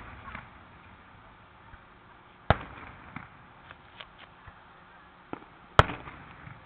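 Aerial firework shells bursting: two loud sharp booms about three seconds apart, each with a short rumbling tail, and a few fainter pops in between.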